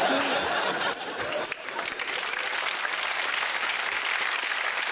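Studio audience applauding steadily, a dense wash of many hands clapping.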